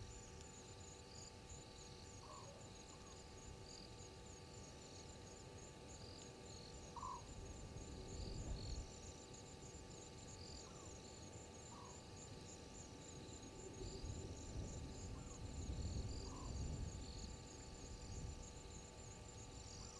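Night insect chorus: a fast, even high-pitched trill runs on, with scattered higher chirps and short rising call notes every second or two. A low rumble swells twice, around 8 seconds in and again from about 14 to 17 seconds.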